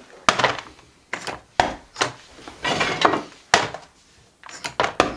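A series of about ten sharp, irregular knocks and clicks of a light wooden frame being handled and set down on a wooden desk.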